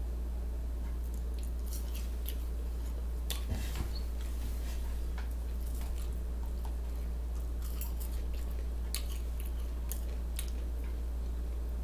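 A person chewing a sausage sandwich with the mouth open, making scattered wet smacks and clicks that come in clusters, over a steady low electrical hum.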